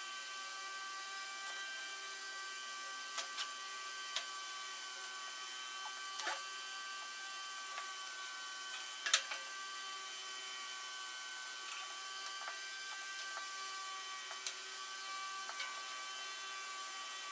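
A steady mechanical whine at several fixed pitches, with scattered sharp clicks and light knocks, the loudest about halfway through.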